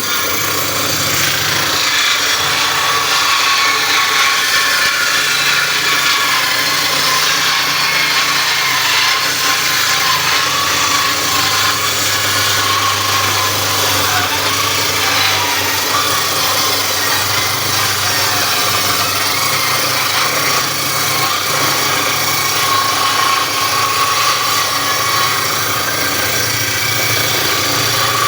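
Motor-driven saw cutting through wood without a break, a rasping cut over a steady low motor hum.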